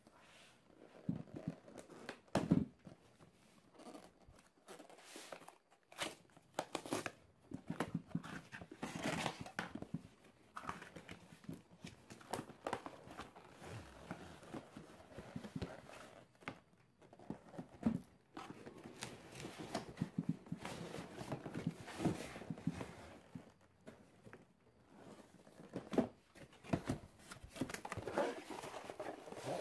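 Cardboard box being opened by hand: packing tape and cardboard tearing, with irregular rustling, scraping and knocking of the box flaps.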